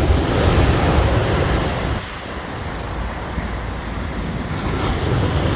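Large sea waves breaking on the shore: a loud, steady surf rush with a heavy low rumble, easing a little about two seconds in and swelling again toward the end.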